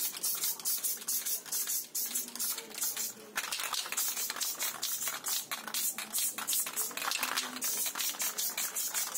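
Aerosol spray can of Samurai flat clear coat being shaken and sprayed: the mixing ball rattles in a quick, even rhythm of about four or five strokes a second, with the hiss of spraying.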